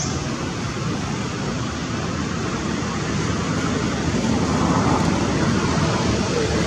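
Steady outdoor background noise, an even rumble and hiss with no distinct calls, slightly louder near the end.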